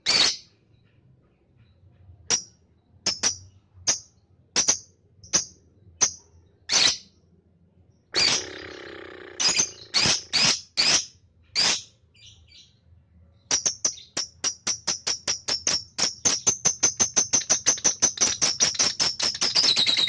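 Lovebird calling: sharp, high single chirps spaced about half a second to a second apart, with a harsher, noisier call about eight seconds in. From about two-thirds through, the chirps come faster and faster, running into a continuous chattering trill, the long 'ngekek' that lovebird keepers prize.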